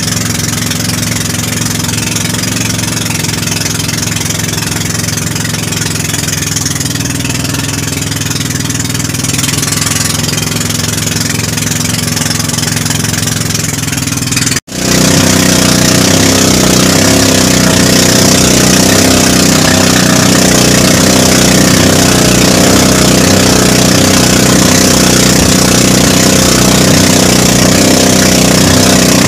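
Small fishing boat's engine running steadily under way, with wind and rushing water over it. A momentary break about halfway through, after which the engine is louder.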